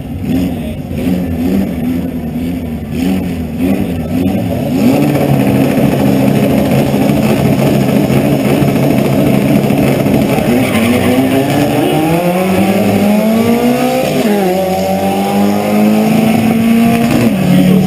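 Race car engines running loudly; from about ten seconds in, one engine's pitch climbs steadily and falls back sharply twice as a car accelerates hard through its gears.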